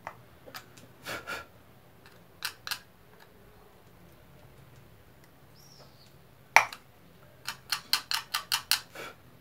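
Small screwdriver tip scraping and clicking against the surface of an LED bulb's circuit board, scratching the yellow phosphor coating off a burnt-out LED chip. Scattered short scratches, a sharp click about six and a half seconds in, then a quick run of about ten short scrapes near the end.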